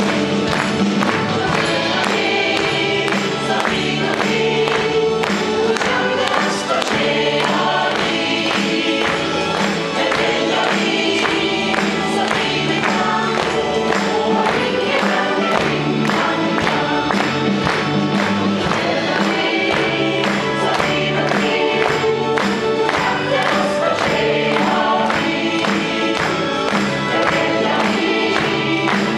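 Mixed choir of men and women singing a Norwegian Christmas song, with live band accompaniment over a steady beat.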